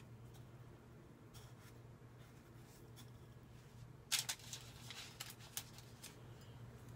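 Faint rustles of a dough ring being pressed into a bowl of sesame seeds, then parchment paper crinkling on a baking tray as the ring is set down, a loud burst about four seconds in followed by a few shorter rustles.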